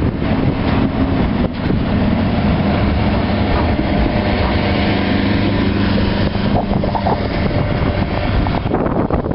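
Train wagons rolling past at a level crossing, the steady rumble and rattle of wheels on rail. A steady droning tone runs through the middle, and wind buffets the microphone.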